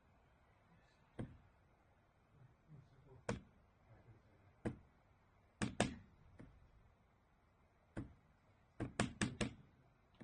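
A series of sharp knocks and clicks, as from handling hard objects: single strikes spaced a second or two apart, then a quick run of four near the end.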